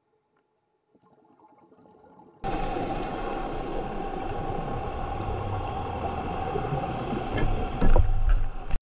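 Underwater sound: a steady hum with a high whine and gurgling. It starts abruptly about two and a half seconds in, after near silence, and gets louder near the end.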